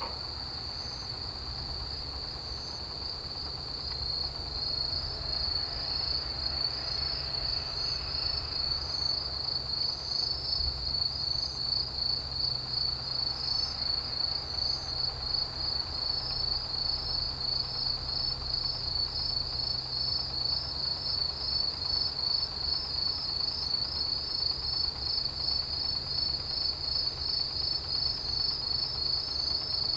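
Autumn grass insects, crickets among them, chirping in a steady high trill that grows louder about four seconds in and settles into a quick regular pulse. A low steady rumble lies underneath.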